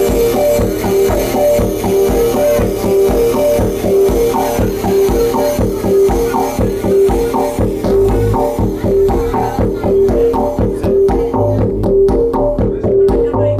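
Live-coded electronic music from TidalCycles: a looping pattern of short pitched notes, about two a second, over a pulsing beat. The high end thins out in the last few seconds.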